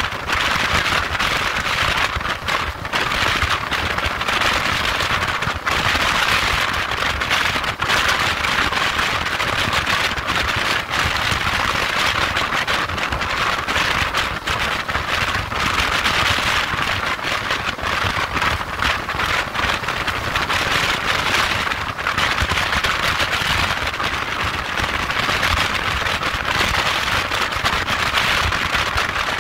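Wind rushing and buffeting over the microphone of a motorcycle at motorway speed, a steady hiss full of rapid crackles, over a low rumble of the engine and tyres on the road.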